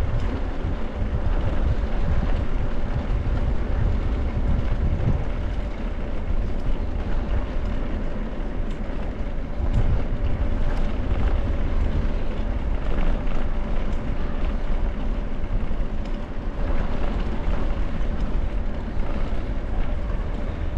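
Bicycle rolling over a herringbone brick-paved street: a steady low rumble of tyres and frame vibration on the bricks, with wind buffeting the microphone.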